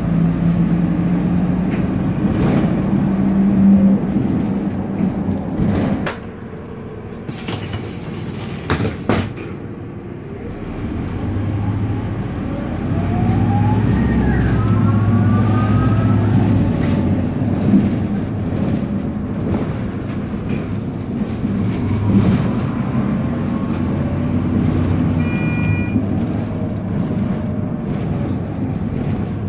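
Optare Solo single-decker bus's diesel engine and drivetrain, heard from inside the passenger saloon. The engine note eases off about six seconds in, a hiss of air lasts about two seconds, then the engine pulls hard again with a rising whine.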